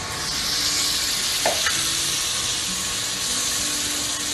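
Ground tomato paste sizzling as it lands in a hot cast-iron skillet of onions sautéed in butter, the sizzle swelling as it spreads, while a wooden spoon stirs it; a light knock about one and a half seconds in.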